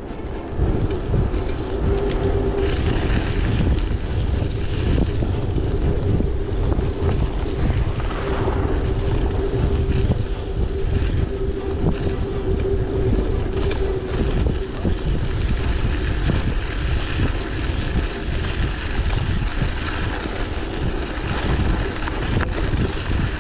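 Wind buffeting the microphone of a camera on a moving bicycle, a dense rumble that covers the whole stretch. A steady hum runs under it and stops about two-thirds of the way through.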